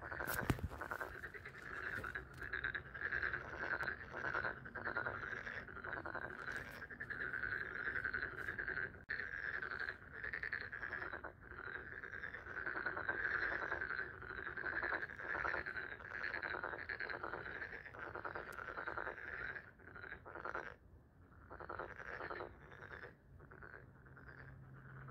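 A chorus of frogs calling, many croaking calls overlapping without a break, thinning out and growing quieter about twenty seconds in.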